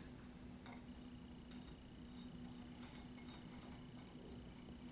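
Faint, scattered clicks and ticks of a glass light bulb being handled and screwed into a metal lamp socket, over a faint steady high-pitched whine and a low hum.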